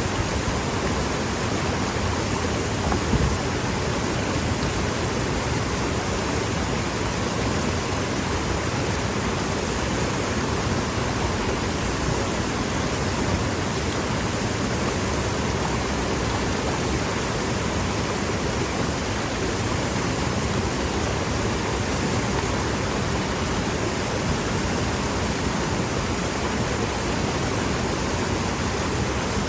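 Mountain stream rushing over boulders: a steady, even roar of water.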